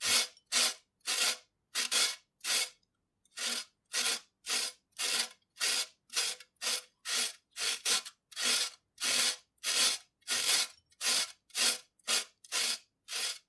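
Carrot being grated by hand on a grater: rasping strokes, about two a second, with one short pause about three seconds in.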